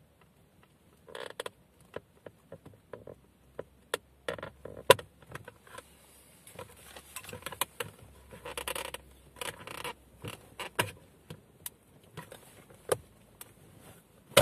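Skoda Rapid centre-console plastic trim being pried loose with a screwdriver: a run of clicks and snaps from stiff retaining clips, the loudest a bit under five seconds in, with plastic scraping and rubbing.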